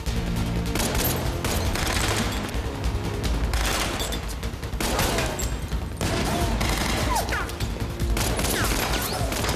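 Rapid automatic assault-rifle fire in a film soundtrack, in sustained bursts with a slightly quieter stretch around five seconds in, over a music score.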